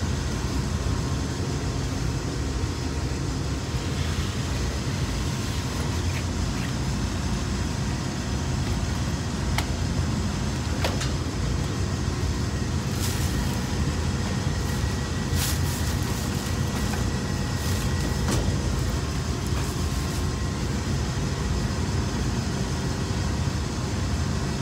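Steady low hum and rush of a running ventilation unit's fan, with a few light clicks and knocks scattered through the middle.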